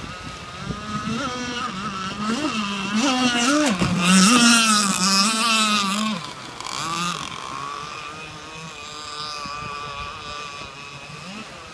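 Zenoah 260 two-stroke gas engine of an RC deep-vee boat running at speed, its pitch wavering as it works through the chop. It grows loud as the boat passes close about four seconds in, then drops suddenly after about six seconds and fades as the boat runs away.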